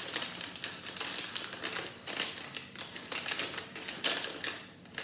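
Small paper minifigure bag rustling and crinkling in the hands as it is opened, a quick run of crisp, scratchy rustles.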